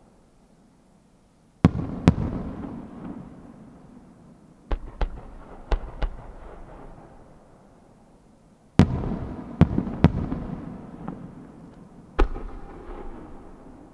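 Aerial firework shells bursting in a display: about ten sharp bangs in four clusters, each rolling away in a long rumbling echo.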